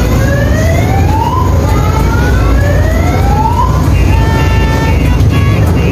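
Siren-like electronic wails rising slowly in pitch, twice, over the steady low rumble of a mini ride train running through a tunnel; about four seconds in, steady held electronic tones take over.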